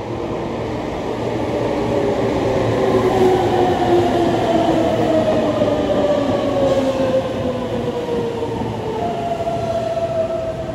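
Red Meitetsu electric train pulling into the station, its wheels rolling on the rails under a motor whine that falls slowly in pitch as it slows. A fresh, higher whine comes in near the end.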